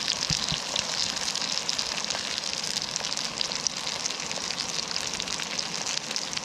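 Pork steaks sizzling in a hot non-stick frying pan on a camping gas stove: a steady hiss full of small crackles and spits, with a couple of soft knocks about half a second in as the pan is set down on the burner.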